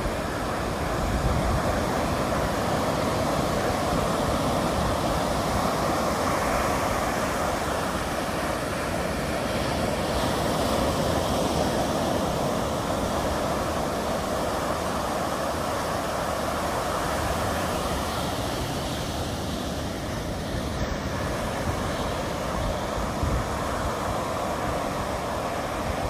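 Atlantic Ocean surf breaking and washing up a sandy beach: a steady, continuous rush of waves.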